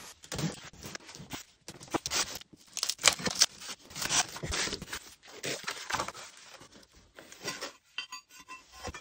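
Packaging being torn open and handled while a CNC engraver kit is unpacked: irregular tearing, scraping and rustling, in short uneven bursts.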